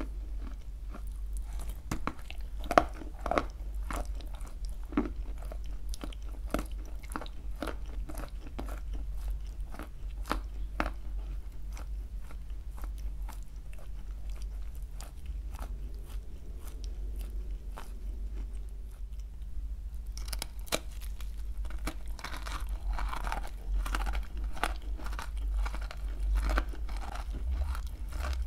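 Close-miked biting and chewing of dry grey clay: a run of crisp crunches and crackles that thins out past the middle, then comes thick and fast again in the last third.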